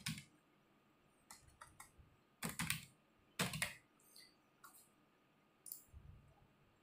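Typing on a computer keyboard: faint key clicks in several short bursts with pauses between them.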